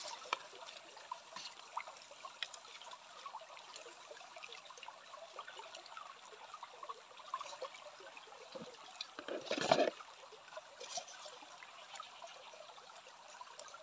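Small stream trickling steadily, with faint crackling and rustling of wet leaves and nylon mesh as hands sort through a hand net. About ten seconds in comes one brief, louder burst of noise.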